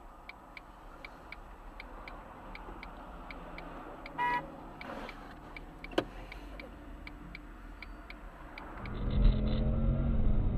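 Turn-signal relay ticking steadily in the cabin of a car idling at a junction, about three clicks a second, with a brief pitched sound about four seconds in. Near the end, louder engine and road noise of a moving car takes over.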